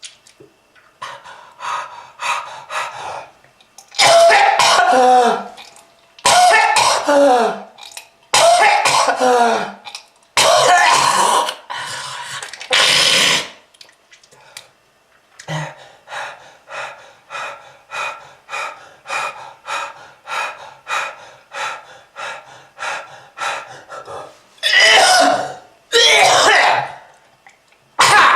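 A person in a prolonged smoker's coughing fit. It opens with a few short coughs, then comes a string of long, loud, racking coughs with a strained voiced groan. After that is a quick run of smaller coughs about two a second, and finally two more loud coughs.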